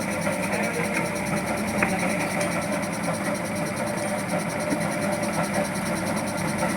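A steady mechanical running noise with a few faint clicks.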